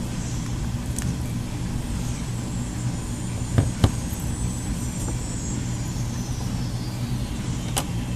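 Steady low hum, with two sharp plastic clicks in quick succession about three and a half seconds in as the phone's flex-cable connectors are popped off the circuit board.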